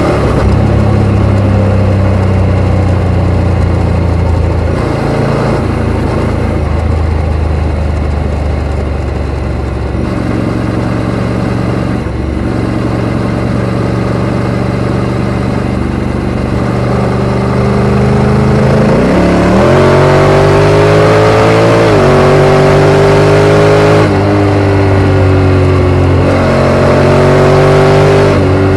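Honda X-ADV 750's parallel-twin engine through a full Akrapovic exhaust, running at a steady pace for most of the stretch. About two-thirds in it accelerates hard, the pitch climbing and dropping back at each automatic gear change, twice, then climbing again and easing off near the end.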